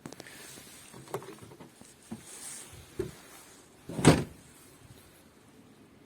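Handling noises from a newly unpacked car radiator and its packaging: a few light knocks and some rustling, then a heavier thump about four seconds in.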